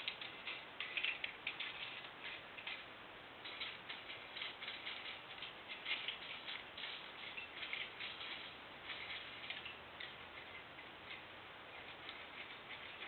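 Quick, irregular light ticks and scrapes of a thin steel feeler-gauge blade being worked under a precision straight edge laid across an engine block deck, checking the clearance to see whether the block has bowed.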